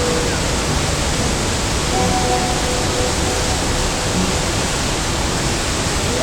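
Steady rushing noise at an even level, with faint short held tones coming and going under it.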